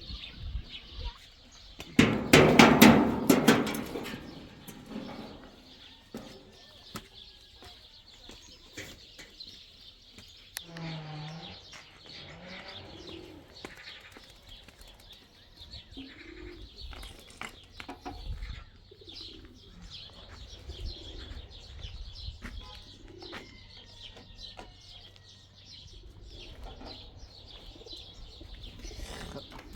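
Birds calling with short, low calls repeating every few seconds. There is a loud burst of noise lasting about two seconds, starting about two seconds in.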